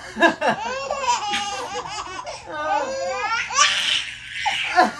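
A baby laughing in short, high-pitched bursts, with an adult man laughing along.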